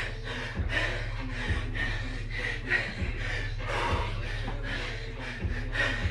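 A man panting heavily as he exerts himself lifting a dumbbell, in quick, regular breaths about two a second.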